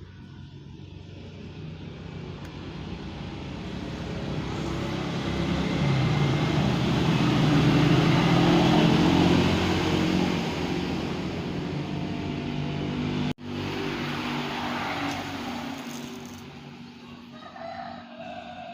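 A motor vehicle's engine passing by, swelling to its loudest about eight seconds in and then fading, with a sudden brief dropout about thirteen seconds in.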